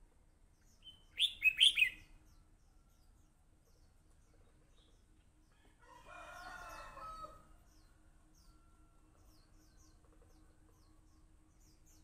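Red-whiskered bulbul singing one short, loud phrase of three or four quick whistled notes about a second in. About six seconds in comes a lower, drawn-out call lasting over a second, and faint high chirps of small birds sound throughout.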